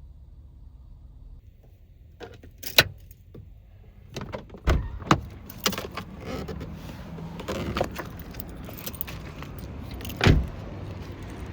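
Scattered clicks, knocks and small rattles, like keys and objects being handled inside a parked van, with the loudest knock near the end. From about four seconds in, a steady hiss of heavy rain grows louder underneath.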